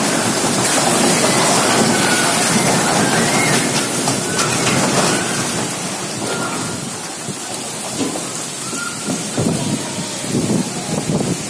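Storm wind and heavy rain of a whirlwind, a loud steady rush of noise that eases a little in the second half. A few short knocks come through near the end.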